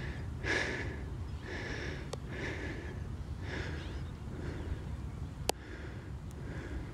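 A cyclist panting hard to catch his breath after a long uphill climb, about one breath a second. Wind rumbles on the microphone, and there are a couple of sharp clicks.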